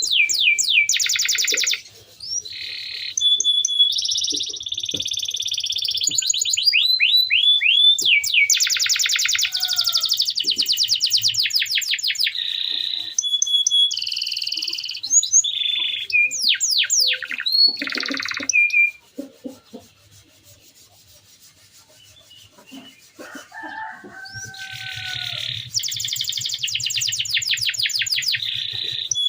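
Domestic canary singing a rolling song, made of fast trills and rapid strings of repeated high notes. About two-thirds of the way through there is a quieter pause of several seconds with a few lower gliding calls, and then the song picks up again.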